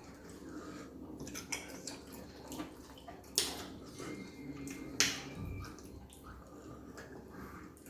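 Wet clicking and smacking of mouths eating fufu with slimy ogbono soup close to the microphone, with two sharper smacks about three and a half and five seconds in.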